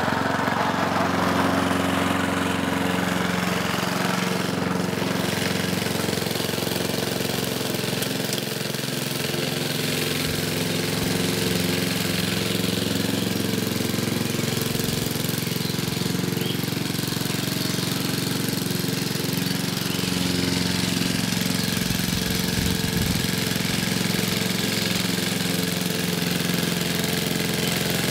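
Vintage Goodall walk-behind lawn mower with a 3 HP four-stroke Briggs & Stratton engine running steadily under load as it cuts long grass.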